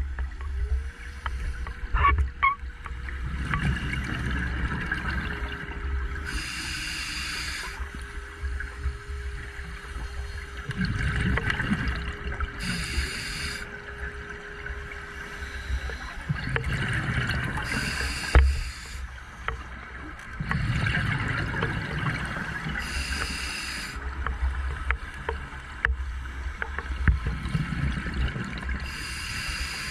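Underwater recording of a scuba diver breathing through a regulator: a breath about every five to six seconds, short hisses of air alternating with low rumbling bursts of exhaled bubbles. A steady hum-like tone runs under it through the first half.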